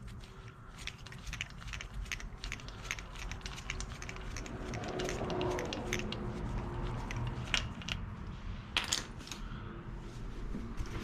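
Irregular light metallic clicks and clinks of hand tools and parts being handled while working on a motorcycle engine's spark plugs, with two sharper clacks about three-quarters of the way through.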